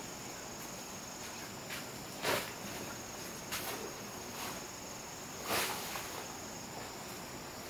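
Steady high chirring of insects, with a few short scrapes over it; the loudest comes a little after two seconds in and again about five and a half seconds in.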